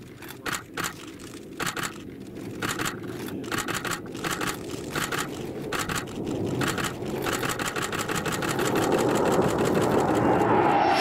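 Edited soundtrack sound design: a ticking percussion pattern that starts at a few ticks a second and speeds up, under a rising rush of noise that swells over the last few seconds.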